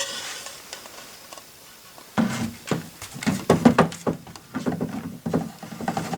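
Irregular wooden clicking and knocking from an antique barrel organ's mechanism being worked, starting about two seconds in and going on in quick clusters, after a brief hiss at the very start.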